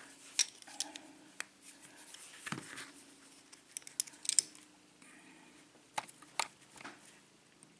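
Scattered small metal clicks and light scraping from a Sargent lock cylinder being handled while its retaining clip is worked off, about eight sharp clicks spread unevenly.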